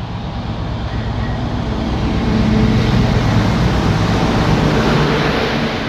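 Class 60 diesel locomotive's eight-cylinder Mirrlees engine running as the locomotive approaches and passes close by, growing louder to a peak in the middle and then easing off.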